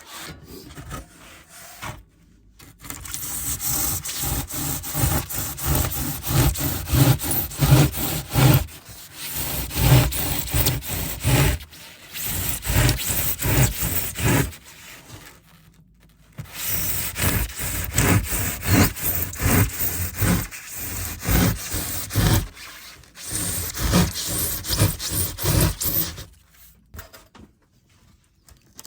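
Hand saw cutting through a piece of insulation, in runs of quick back-and-forth strokes broken by a few short pauses.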